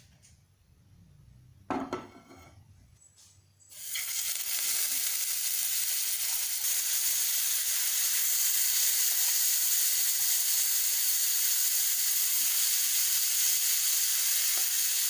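A single knock, then marinated chicken pieces frying in hot oil in a frying pan. The sizzle starts suddenly about four seconds in and stays steady.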